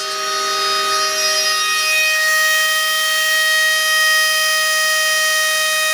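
Small brushless spindle motor (Turnigy P2627L 4200kv, 12 V) whining steadily while it mills a spiral trace into copper-clad circuit board, together with a vacuum cleaner drawing off the milling dust: several held tones over a steady hiss.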